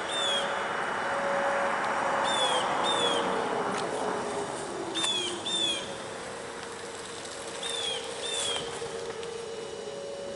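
Outdoor warning sirens winding down, several steady tones with some sliding slowly lower in pitch, under a rush of noise that swells and fades. A bird calls four times over them, each call a pair of short downward chirps.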